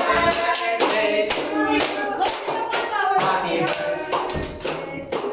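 A group of people clapping in a steady rhythm, about two to three claps a second, while voices sing and laugh.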